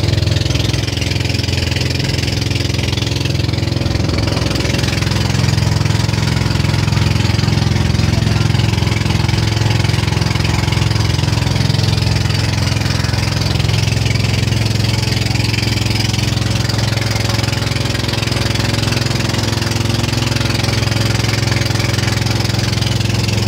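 Outrigger boat's engine running steadily under way, with the hiss of spray and wind over it.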